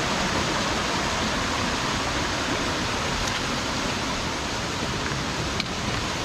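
Steady rushing of a mountain stream and nearby waterfall, with one brief click near the end.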